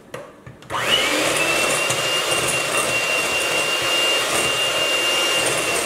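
Electric hand mixer switched on about a second in, its motor spinning up with a rising whine that settles into a steady high whine as the beaters whip egg whites into meringue.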